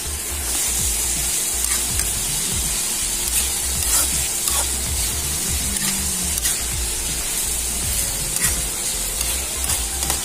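Sliced bitter gourd (ampalaya) and onion sizzling steadily in oil in a metal wok, stirred and tossed with a metal spatula that clicks and scrapes against the pan at irregular moments.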